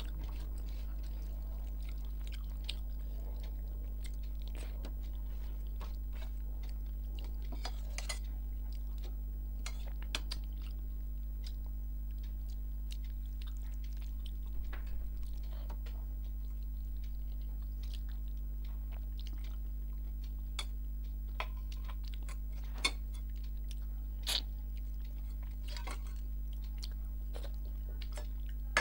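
Close-up mouth sounds of a person chewing rice and curry, with wet smacks and many small scattered clicks as fingers gather food on a stainless steel plate. A few sharper clicks stand out, the loudest a little over two-thirds of the way through, over a steady low hum.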